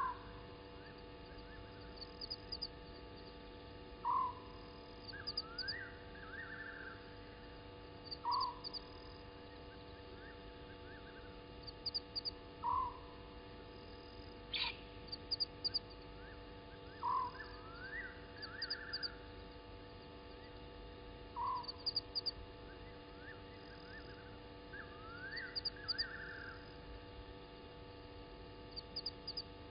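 Night-time animal calls: a short rising call repeats about every four seconds, with longer rising calls that break into a rapid trill in between. A steady electrical hum runs underneath.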